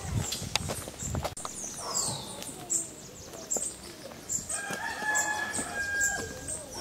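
A rooster crows once, a long call in the second half, over footsteps on a gravel lane and small birds chirping.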